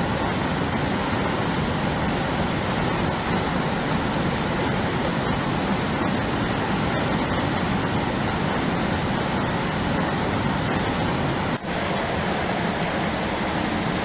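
Mountain stream water rushing over rocks and gravel, a steady even rush with a momentary break about twelve seconds in.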